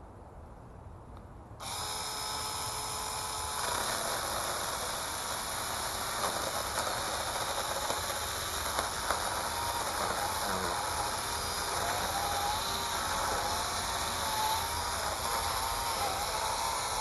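Battery-powered 4-inch mini chainsaw (Dingmo 21 V) switching on about a second and a half in with a steady electric whine, then cutting into a tree branch: the sound turns louder and rougher, and its pitch wavers as the chain bites under load.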